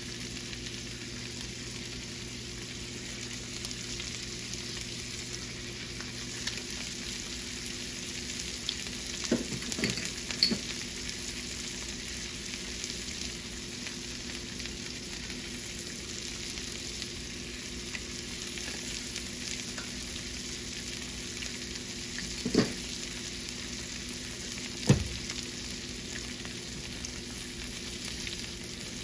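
Panfish fillets and green beans sizzling steadily as they fry in a cast-iron skillet. A few knocks against the pan stand out, a cluster about ten seconds in and two sharper ones near the end.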